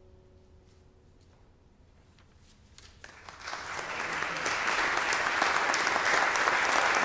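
The last held note of the music fades out, and after a short hush an audience breaks into applause about three seconds in, building quickly to steady clapping.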